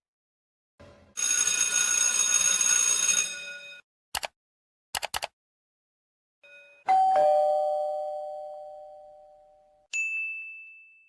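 A string of separate sound effects. First a noisy burst about two and a half seconds long with a steady ringing in it, then a few quick clicks. Then comes the loudest part, a two-tone ding-dong doorbell chime, high note then lower note, both fading slowly, and a short high ding near the end.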